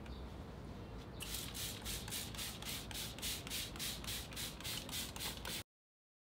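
Hand-held trigger spray bottle squirting water in quick repeated pumps, about five short hisses a second. The spraying starts about a second in and cuts off abruptly near the end.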